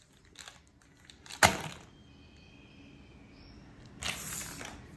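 A loud sharp crack about a second and a half in, then a brief whoosh near the end, with faint clicks and a faint high tone between them.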